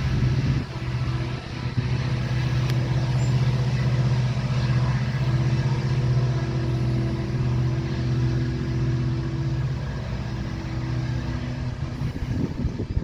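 Diesel-electric helper locomotives shoving hard on the rear of a loaded coal train: a steady, loud low engine drone. A higher steady hum drops out about two-thirds of the way through, and the sound eases a little near the end as the units pull away.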